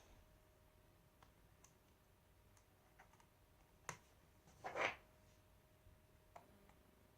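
Faint scattered clicks from small screws, a screwdriver and the laptop's plastic back plate being handled during reassembly, with a sharper click about four seconds in and a brief louder clatter just after.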